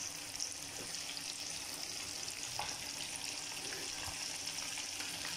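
Masala-coated fish pieces frying in hot oil in an iron kadai: a steady sizzle with a few small pops. The fish is nearly done.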